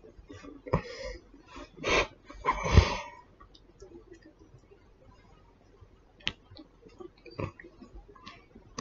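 Grey kitten suckling and nuzzling at an earlobe right by the microphone: a few snuffling, breathy puffs in the first three seconds, then two sharp little wet clicks later on.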